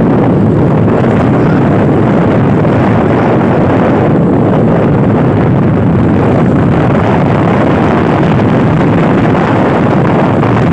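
Loud, steady rush of wind buffeting the microphone, mixed with the noise of a moving vehicle riding along a road.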